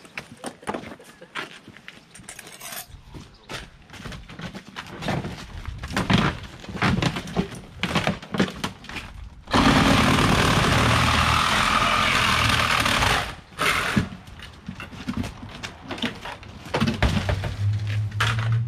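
Rescue tools working on a car body during a vehicle extrication: repeated metal knocks and clatter, then about ten seconds in a loud steady machine noise for about four seconds, and a motor running near the end.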